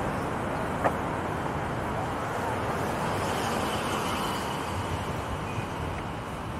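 Steady noise of road traffic on the Brooklyn Bridge, with a single sharp click about a second in.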